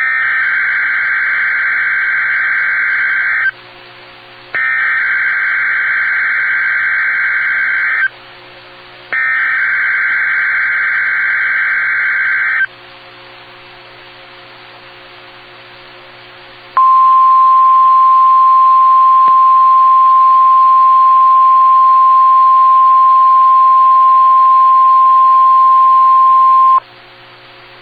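Three bursts of Emergency Alert System SAME header data from NOAA Weather Radio, encoding a Required Weekly Test. Each is a shrill warbling data tone about three and a half seconds long, with a second's gap between them. After a pause of about four seconds comes the steady 1050 Hz NOAA Weather Radio alert tone, held for about ten seconds.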